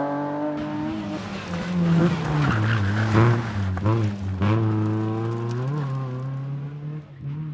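Rally car engine pulling hard on a stage, its pitch falling and climbing again several times with lifts and gear changes. About two to three and a half seconds in, a rasp of skidding tyres joins it.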